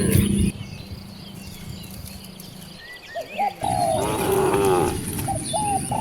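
Cattle mooing: a deep moo trails off about half a second in, and after a quieter gap another cow calls from about three and a half seconds in.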